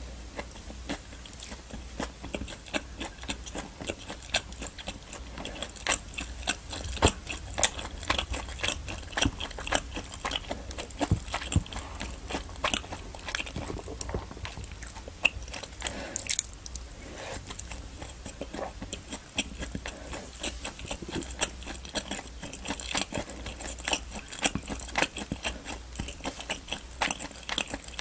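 Close-miked chewing of a mouthful of vegetable biryani rice: a dense, irregular run of small wet mouth clicks and smacks.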